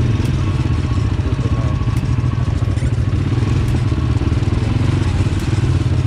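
CFMoto CForce 400 ATV's single-cylinder four-stroke engine running steadily as the quad rolls over a rocky dirt trail, heard from the machine itself as a continuous low, rapid pulse.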